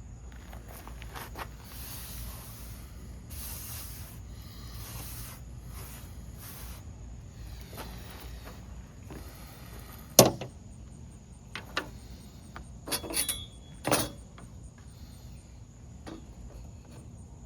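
A wooden hand-drill spindle being rubbed between the palms, a run of rasping swishes, followed by a few sharp wooden knocks and clicks, the loudest about ten seconds in. Insects trill steadily in the background.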